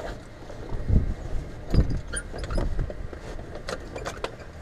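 Handling noise in a small plane's cockpit as a headset is fitted and adjusted: several dull low thumps and sharp clicks and rattles over a steady low rumble.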